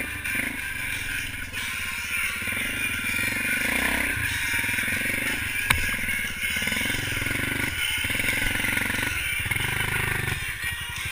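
ATV's single-cylinder engine revving up and down as the quad is ridden off the trail into brush, with a sharp knock about halfway through.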